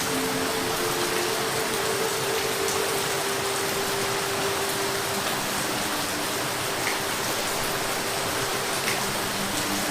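Steady rain falling, an even hiss with a few individual drops ticking. A faint steady hum runs underneath.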